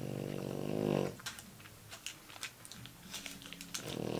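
A dog snoring: one long, buzzy snore breath ends about a second in and the next begins near the end, with faint small clicks in between.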